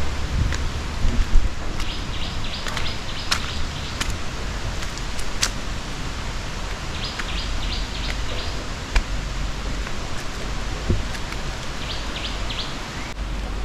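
Steady rush of a waterfall, with a small bird chirping in three quick runs of short, high notes, and wind buffeting the microphone with a low rumble.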